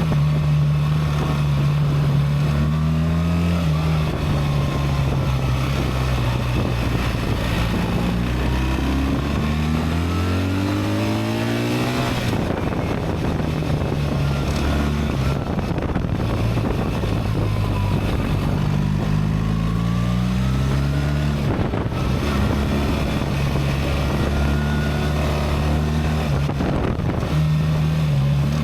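BMW R 1300 GS Adventure's boxer-twin engine under way. Its pitch climbs twice and breaks off suddenly each time as the Automated Shift Assist changes gear by itself, with steady running in between.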